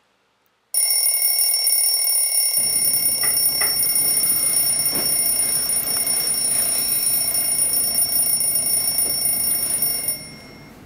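Mobile phone ringing with a steady, high electronic tone that starts about a second in and cuts off shortly before the end, as it is silenced.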